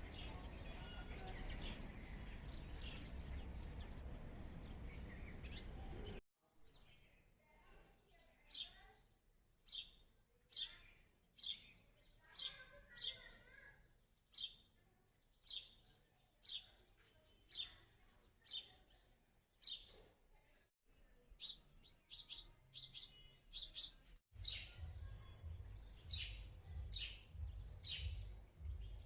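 House sparrows chirping: a long run of short, falling chirps, about one a second. A low background rumble underlies the chirps at the start, drops out about six seconds in and returns near the end.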